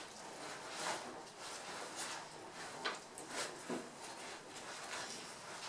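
Prada nylon backpack being handled and turned over: soft, irregular fabric rustling with a few small sharp clicks from its straps and fittings, the sharpest about three seconds in.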